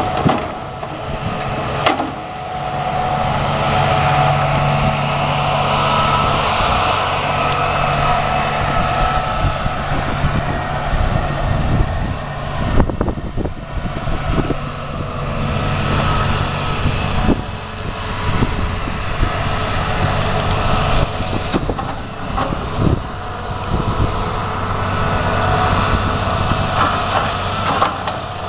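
A log loader's diesel engine working, its pitch rising and falling as it moves loads, with several sharp knocks of logs being set down onto the log truck.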